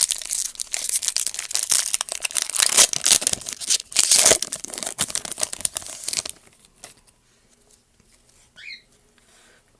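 A Magic: The Gathering Fate Reforged booster pack's wrapper being torn open and crinkled, a dense crackling that stops about six seconds in.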